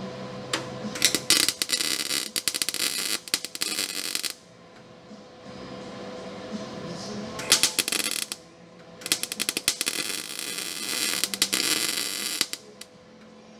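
Electric welding arc crackling on the steel sheet metal of a 1955 Chevy 3100 truck's cab corner as short welds are laid: a burst of about three seconds, a brief one near the middle, and another of about three seconds near the end.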